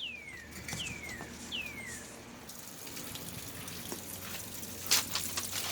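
A bird sings three clear whistled notes, each sliding down in pitch, about a second apart. Then a steady hiss of running water comes in, with a couple of light clicks near the end.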